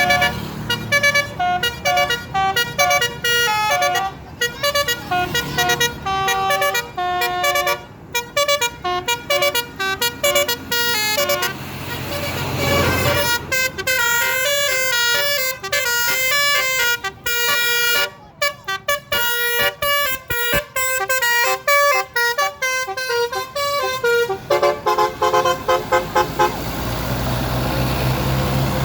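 Indonesian bus telolet horn, a multi-trumpet musical air horn, playing a quick tune of short notes that step up and down in pitch. A short rush of noise comes about halfway through, and a low steady hum takes over near the end.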